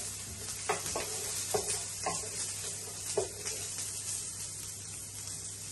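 Chopped onions sizzling in hot oil in a large frying pan over medium-high heat, softening. A wooden spoon scrapes through them about four times in the first three and a half seconds, then the sizzling goes on alone.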